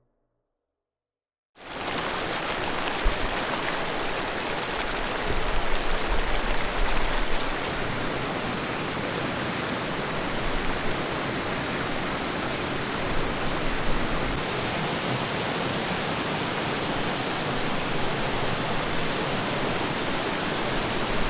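Waterfall: a steady, dense rush of falling water, starting abruptly about a second and a half in after silence.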